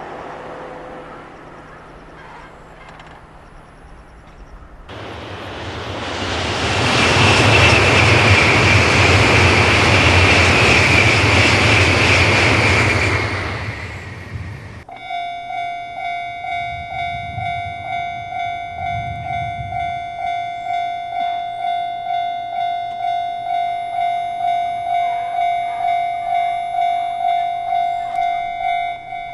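A train passing over the crossing, a loud rush of wheel and rail noise with a high steady ringing note for about eight seconds. After it stops abruptly, the Japanese level-crossing alarm sounds its electronic ding, pulsing evenly about one and a half times a second.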